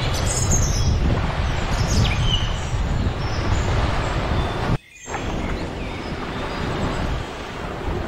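Small waves washing onto a sandy beach under steady wind rumbling on the microphone, with a few short bird chirps in the first two seconds. Just past halfway the sound cuts out abruptly for a fraction of a second and fades back in.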